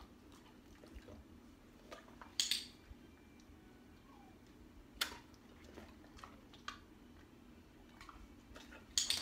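A mostly quiet room broken by a few brief sharp clicks and rustles, the clearest about two and a half, five and nine seconds in.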